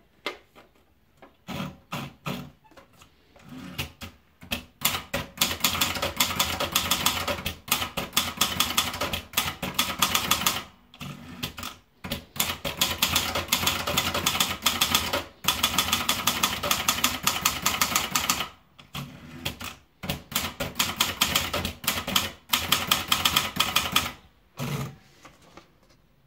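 Royal Signet manual portable typewriter being typed on quickly: runs of rapid key strikes clacking against the platen, broken by short pauses every few seconds.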